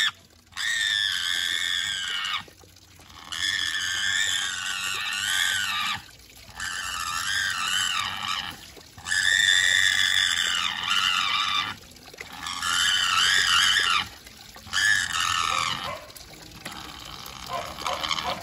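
Piglet squealing during a bath: a run of long, high, wavering squeals, each about two to three seconds, with short breaks between them, over water running from a tap into a basin. The squeals grow weaker near the end.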